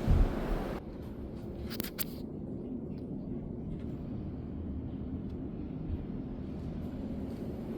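Steady low hum with a few knocks at the very start and two sharp clicks about two seconds in.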